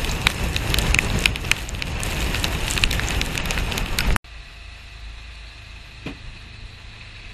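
Strong wind rushing over the microphone with crackling spatters of sea spray on the deck of a racing trimaran. About four seconds in it cuts off abruptly to a much quieter steady rush, with one faint knock shortly after.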